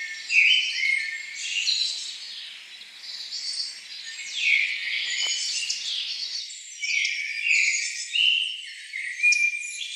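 Several songbirds singing at once: overlapping chirps, whistles and short trills.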